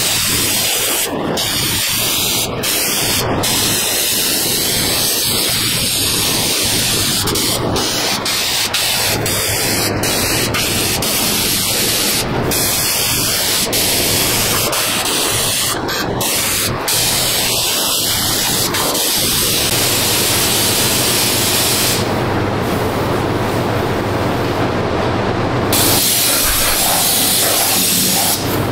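Air-powered undercoating spray gun hissing steadily as it sprays Fluid Film oil onto a truck's underbody, with many brief breaks in the spray and a duller stretch about three-quarters of the way through.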